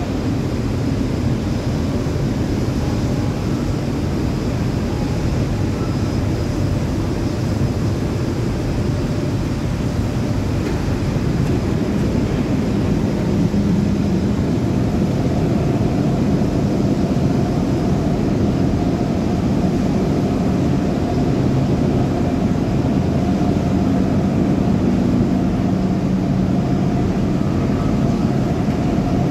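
Steady, loud industrial rumble as a crane-held ladle pours molten iron into a steelmaking converter, with the melt shop's plant running. A low hum grows slightly stronger about halfway through.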